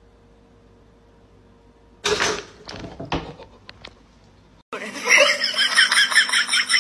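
A pop-up toaster springs up with one sudden, loud metallic clank about two seconds in, startling the cat, followed by a few lighter knocks. From about five seconds in, a loud, busy run of high, quickly changing pitched sounds.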